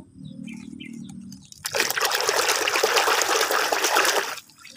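Water pouring and splashing over a muddy toy train as it is rinsed clean, lasting about three seconds from nearly two seconds in.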